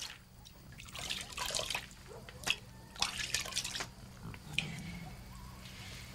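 Water dripping and trickling as wet hands squeeze and rub lime-soaked maize kernels in a plastic bowl, with the kernels shifting and a few sharp clicks.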